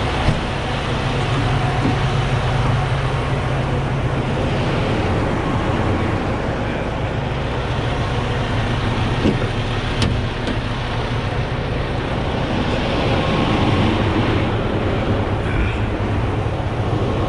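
Heavy diesel truck engines idling: a steady low hum, with a couple of sharp clicks, one near the start and one about ten seconds in.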